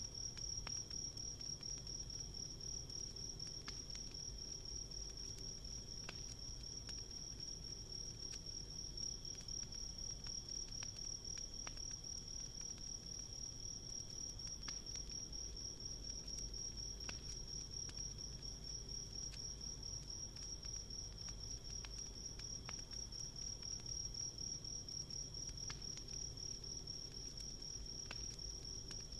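Crickets trilling in a steady, continuous high chorus, with faint scattered crackles and pops from a wood campfire.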